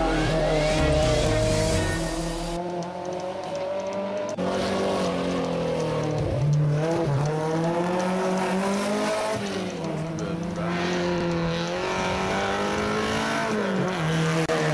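Hillclimb racing cars' engines revving hard as they pass, the pitch rising and falling with gear changes. The sound jumps abruptly twice a few seconds in.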